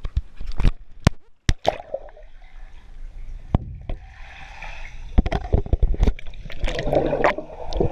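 Pool water heard through a GoPro's waterproof housing as it goes underwater: muffled gurgling and sloshing, with sharp knocks from hands on the camera housing early on and heavy splashing near the end.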